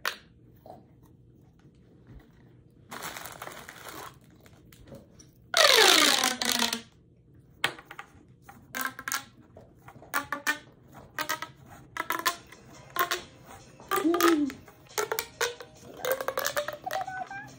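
Corrugated plastic pop tubes being stretched and squashed, their ribs snapping out and in with rapid runs of pops. The loudest burst comes about six seconds in and carries a falling tone.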